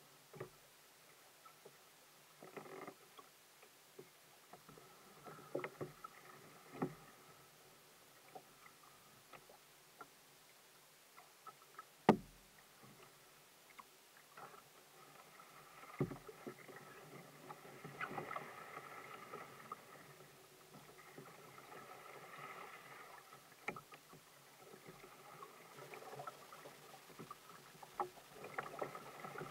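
Kayak being paddled on calm water: faint splashes and drips from the paddle and water lapping at the hull, with scattered light knocks against the boat. One sharper knock comes about twelve seconds in.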